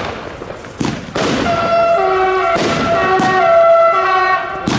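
Consumer firework battery firing: a few sharp shots in the first half. From about halfway, several steady pitched tones sound together and change pitch in steps, then everything cuts off abruptly near the end.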